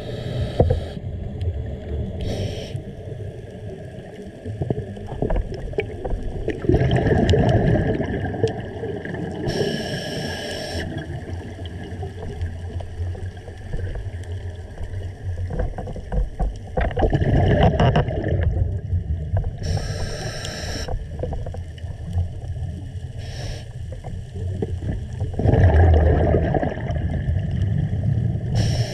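A scuba diver breathing through a regulator, heard underwater: short hissing inhalations, and three long bubbling bursts of exhaled air about nine seconds apart.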